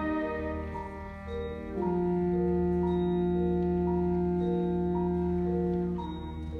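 Concert band playing a slow, quiet passage. A held chord swells in just under two seconds in and holds until near the end, while a mallet instrument such as a marimba or vibraphone repeats a two-note figure, high then low, a note every half second.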